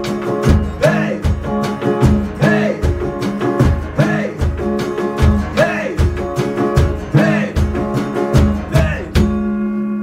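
Acoustic rockabilly band playing: strummed acoustic guitars over a drum beat of about two low hits a second, with singing. The song ends about nine seconds in on a final guitar chord left ringing.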